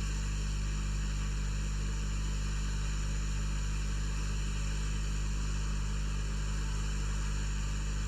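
Hot air rework station blowing steadily on a circuit board to melt the solder under an SMD chip: an even hiss of air with a steady low hum.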